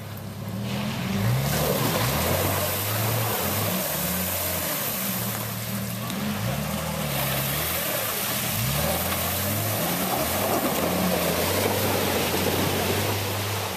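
Jeep Cherokee engine revving up and down over and over as the truck pushes through flooded, icy trail water, with the hiss and splash of water and broken ice around its tyres.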